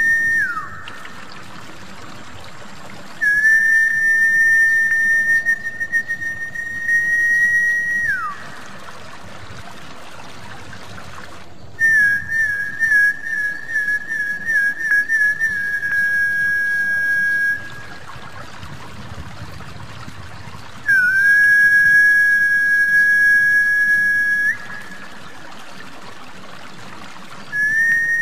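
Snakehead-fish lure whistle: long, high whistled notes of several seconds each with pauses of about three seconds between them. Most notes hold one pitch and end in a quick downward slide, and one opens with a rapid warble. A steady trickle of running water underlies them throughout.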